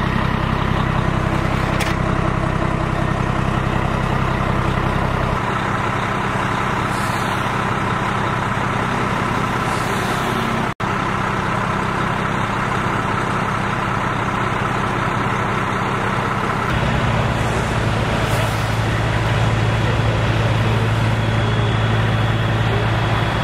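Idling engines running steadily, with a constant hum. The engine sound changes abruptly twice, about five seconds in and again near seventeen seconds, and cuts out for an instant near the middle.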